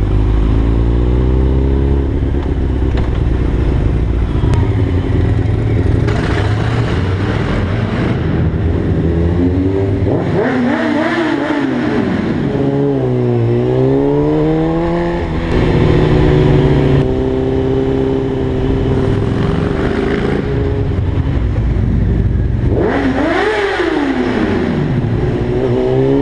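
Honda CBR600F inline-four through a Mivv Suono aftermarket exhaust, ridden through a tunnel. The engine is revving and accelerating, its pitch falling and climbing several times, with a quick sharp rev near the end.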